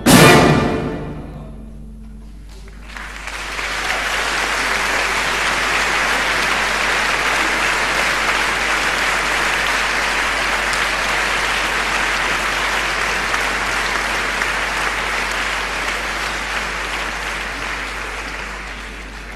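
A loud orchestral chord at the very start rings out in the hall and dies away. About two and a half seconds in, audience applause rises, carries on steadily, and tapers off near the end.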